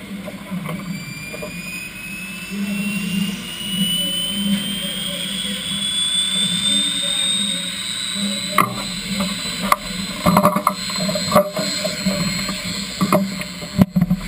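Pulling tractor's supercharged engine idling with a steady low throb. Over it, a high whine slowly rises in pitch, and several sharp knocks come in the last few seconds.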